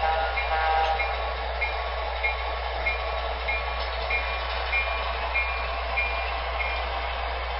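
MTH model diesel locomotives in a lashup running from their onboard sound systems as they pull out in reverse, with a short high tone repeating about every 0.6 seconds and stopping near the end.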